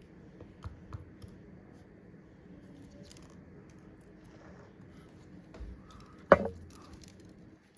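Light clicks of small repair tools working on a phone, with one sharp tap about six seconds in.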